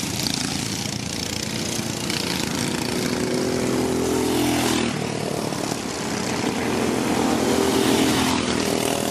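Racing kart engines running on the track, pitch climbing as a kart accelerates and dropping away about five seconds in, then another engine climbing again near the end.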